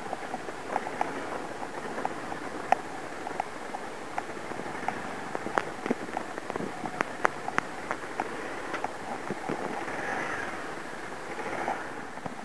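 Motorcycle riding over a wet, muddy, rocky dirt trail: a steady rush of engine and tyre noise with frequent sharp clicks and ticks scattered through it.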